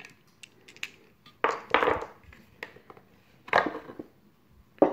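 Plastic polyhedral dice clattering against a purpleheart wooden dice tray in a few short rattling bursts. The longest and loudest burst comes about one and a half seconds in.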